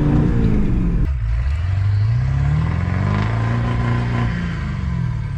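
Old Ford pickup's engine revving under throttle. The pitch sags slightly, climbs again about two seconds in, holds, then falls away near the end.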